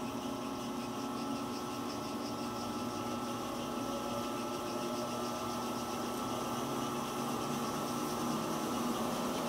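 Aronson HD-100 welding positioner's electric drive motor and gearing running steadily as the table is tilted from the pendant control, a steady motor hum and whine with a few fixed tones, growing slightly louder toward the end.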